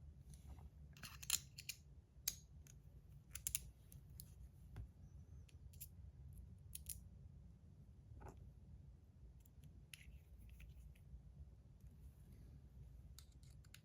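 Faint, scattered small clicks and taps of metal parts as a titanium Rapt fidget is put back together, irregular and a second or more apart, a few of them sharper.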